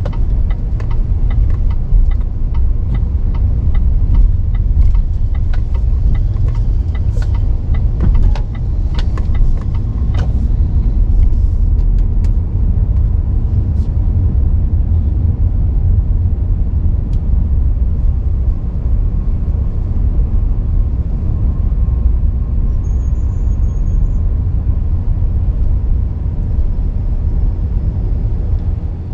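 Car driving: a steady, loud low rumble of road and engine noise. About two light regular clicks a second, with a few sharper ticks, sound through roughly the first half, then stop.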